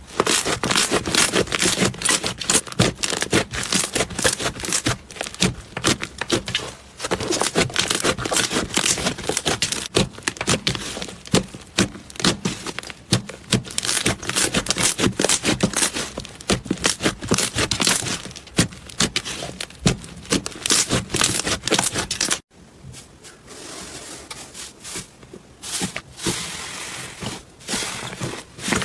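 Slime being squished, pressed and stretched by hand, with dense crackling, clicking pops and sticky scraping. About three-quarters of the way through it cuts abruptly to a quieter clip of softer squishing.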